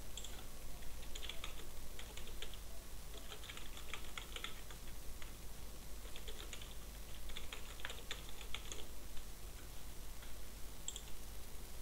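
Typing on a computer keyboard: quick runs of key clicks in three bursts with short pauses between them, then a couple of single clicks near the end.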